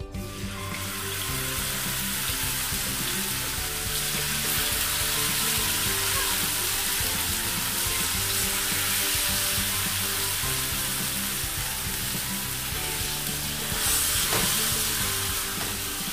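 Marinated sole fillets sizzling in hot coconut oil in a frying pan. The steady sizzle starts about half a second in as the fish goes into the oil, and swells briefly near the end.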